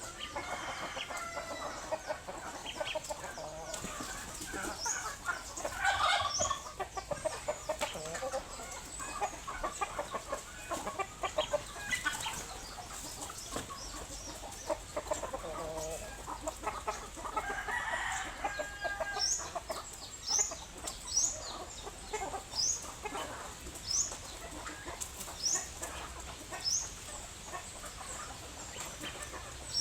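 Chickens clucking and calling throughout, with a rooster crowing, and a run of short, high, rising chirps in the second half.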